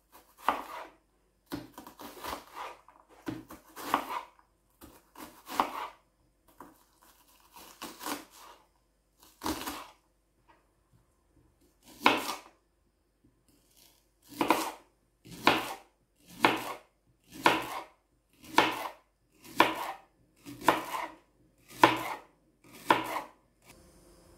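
Chef's knife chopping a red onion, then a leek, on a plastic cutting board. Separate knife strokes strike the board, irregular at first, then steady at about one a second.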